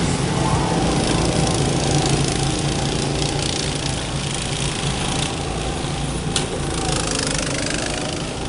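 Several small go-kart engines running steadily as the karts lap the track, a continuous drone. One sharp click about six seconds in.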